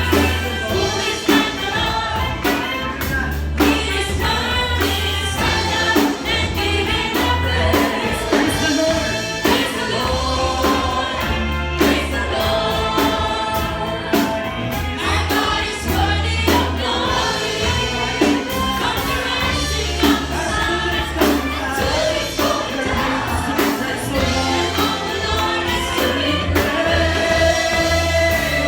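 Gospel worship song sung by a group of voices, like a choir, over a band with a steady bass line and drums.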